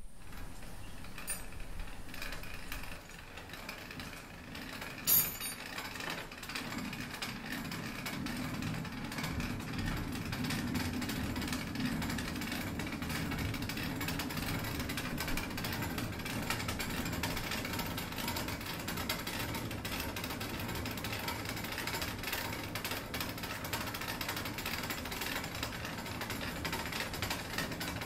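Old stone grain mill: a sharp knock about five seconds in, then the mill running with a steady, rapid mechanical clatter over a low hum.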